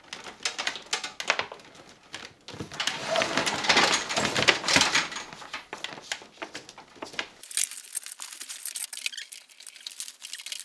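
Plastic-sheathed electrical cables being pulled and untangled by hand, rustling and scraping against each other with many small crackling clicks, loudest about three to five seconds in.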